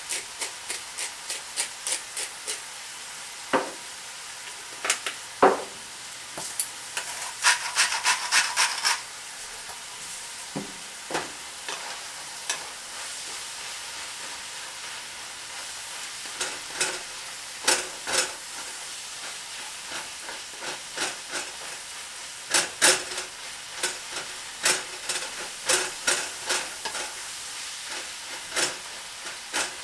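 Ground beef, spinach and mushrooms sizzling in a nonstick frying pan, with a wooden spoon scraping and knocking against the pan as the mix is stirred. A hand pepper grinder clicks rapidly at the start.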